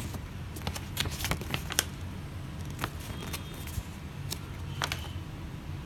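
Scattered light clicks and taps of objects being handled close to the microphone, about a dozen spread unevenly, over a steady low hum.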